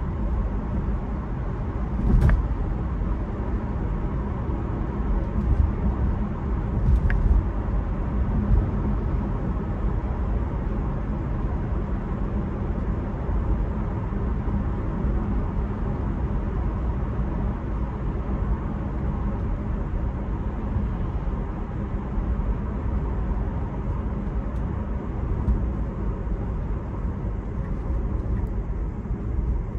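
Road and tyre noise heard inside a Tesla's cabin while it drives at steady speed: a steady low rumble with no engine note. A couple of short clicks stand out, about two seconds in and again around seven seconds.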